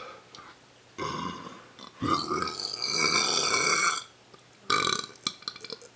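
A person belching, deliberately forced: a short burp about a second in, then a long drawn-out burp of about two seconds, and a brief third one near the end.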